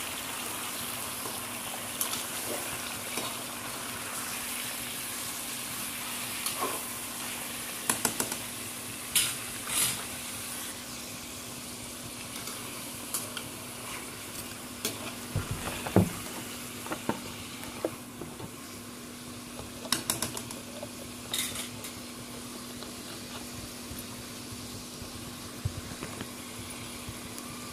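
Chicken frying in hot oil in a karahi, a steady sizzle, with a spoon scraping and knocking against the pan now and then as it is stirred.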